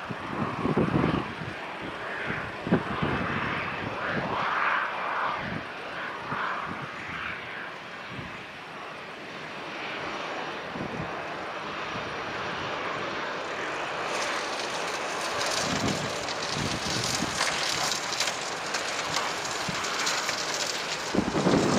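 Airbus A320's CFM56 jet engines on final approach, a steady rushing jet noise that grows louder and gains a sharp high hiss as the airliner closes in over the runway. Low buffeting from wind on the microphone comes and goes, heaviest near the end.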